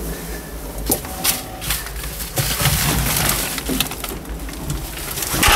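A few sharp clicks and knocks over a steady low rumble, the sharpest one near the end.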